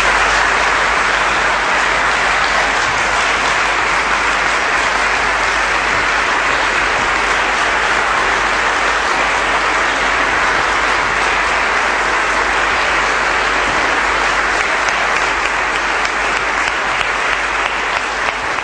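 Large audience applauding: dense, unbroken clapping that starts all at once and holds steady.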